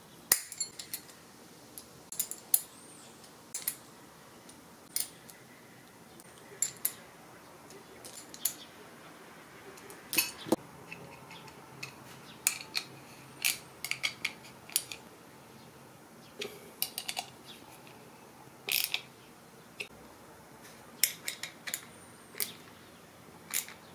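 Small steel bearings, bolts, nuts and a combination wrench clicking and clinking as they are handled and fitted to an aluminium bracket: scattered sharp clicks, some in quick clusters.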